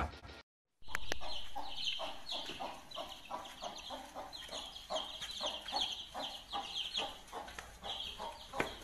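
A flock of chickens clucking and peeping over one another in quick, overlapping high calls.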